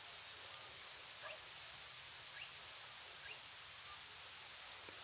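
Faint outdoor ambience: a steady soft hiss with a few short, rising bird chirps spaced about a second apart.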